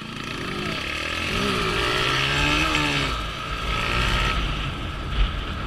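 Street motorcycle engines revving up and down as a rider accelerates away and lifts into a wheelie, with the engine of the following camera bike and wind rumble on its microphone building as speed rises.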